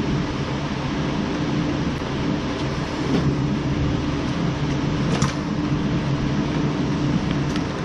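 A steady mechanical hum with a constant low tone, with a few light clicks over it about five seconds in and near the end.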